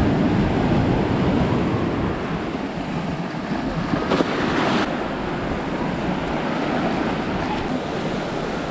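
Sea waves breaking and washing on the shore, with wind buffeting the microphone; a short louder rush of water comes about four seconds in.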